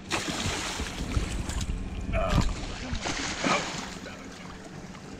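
Water splashing and sloshing in irregular surges, loudest in the first couple of seconds and again a little past three seconds in. A brief vocal sound is heard about two seconds in.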